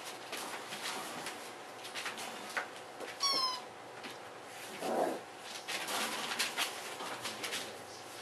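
A puppy gives one short, high, squeaky whine about three seconds in, amid soft rustling and scuffling as the puppies shift on the blanket in a plastic dog bed.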